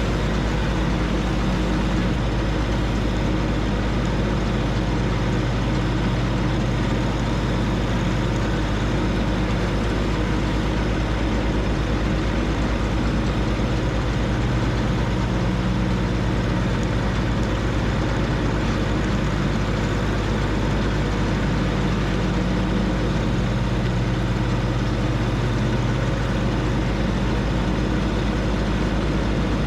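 John Deere 1025R compact tractor's three-cylinder diesel engine running steadily, its note shifting slightly every few seconds.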